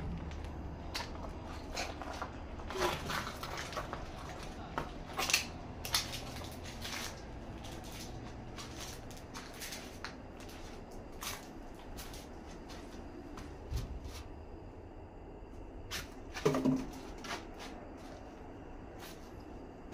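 Footsteps and handling noise in a small, bare room: scattered quiet clicks, scuffs and knocks, with one louder short pitched sound about sixteen seconds in.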